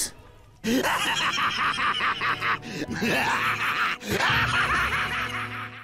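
Dark music with a strained, groaning vocal sound over it. It starts about half a second in and cuts off abruptly at the end.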